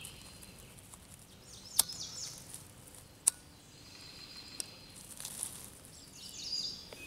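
Faint birds chirping and calling, with two sharp clicks or snaps about two seconds in and again a second and a half later.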